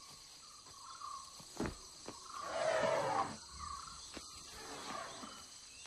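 Asian elephant making a breathy rush of sound about a second long, a little past halfway, with a few soft knocks, over a steady high insect drone.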